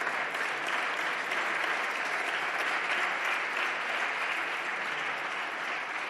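Many people clapping together in a large hall, a sustained round of applause that begins to thin out near the end.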